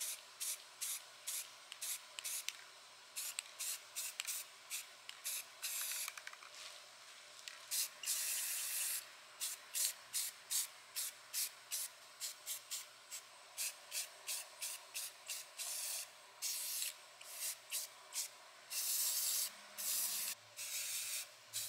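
Rust-Oleum aerosol spray paint can spraying in many short hissing bursts, often two or three a second, with a few longer sprays of a second or more, applying a coat of paint to tape-covered ice skates.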